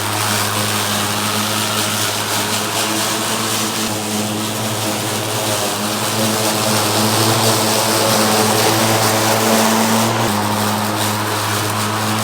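Lawn mower engine running steadily while cutting grass, with a steady drone. The note dips slightly about ten seconds in.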